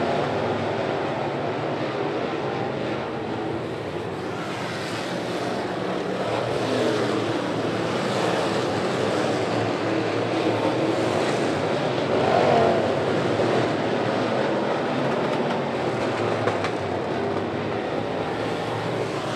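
A field of dirt-track Sportsman late-model race cars running at speed, their V8 engines revving up and easing off through the turns so the note keeps rising and falling. The sound swells loudest about twelve seconds in as cars pass close.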